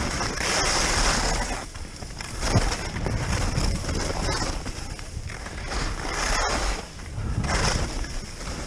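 Skis sliding and scraping over packed snow through a run of turns, the hiss swelling and fading every second or two, with a steady low rumble of wind on the microphone.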